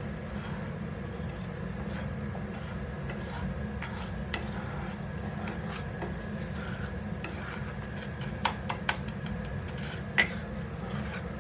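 Wooden spatula stirring and scraping powdered salt and spices around a dry pan as they are lightly roasted: a run of short, scattered scrapes and taps, a few sharper ones near the end, over a steady low hum.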